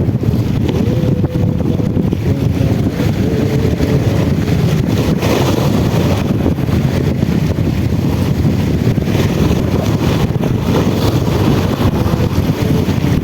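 Strong wind buffeting the microphone: a loud, steady rumble with no break.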